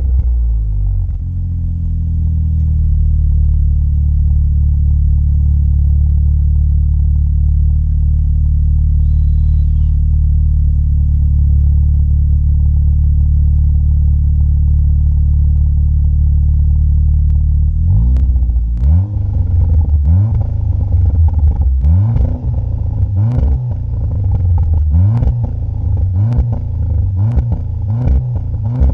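VW Golf 7 GTI Clubsport's turbocharged four-cylinder through a Friedrich Motorsport 76 mm cat-back exhaust with pre-silencer, heard at the tailpipe. The engine settles from higher revs into a steady idle. About two-thirds of the way through, a run of short throttle blips begins, about one a second, several ending in a sharp crack.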